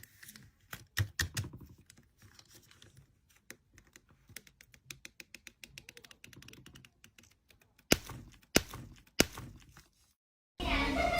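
Slime being squeezed and pressed by hand, making rapid small clicks and crackles, with three louder pops a little over half a second apart near the end. After a short break, a louder sound starts just before the end.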